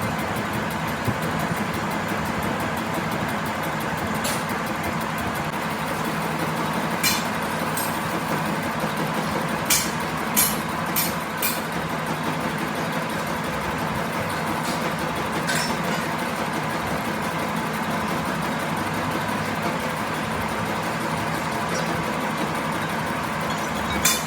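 A motor-driven workshop machine running steadily with an even hum, with a few sharp taps: one about a third of the way in, a quick run of four near the middle, and one at the very end.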